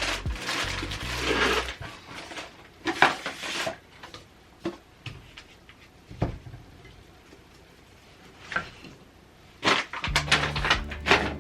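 Household items being handled and set down while cleaning: rustling, then a few scattered clinks and knocks.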